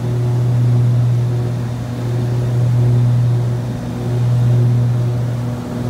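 Piper PA-31 Navajo's twin six-cylinder Lycoming piston engines and propellers droning steadily, heard from inside the cabin. The hum swells and dips about every two seconds, the beat of two propellers turning at slightly different speeds.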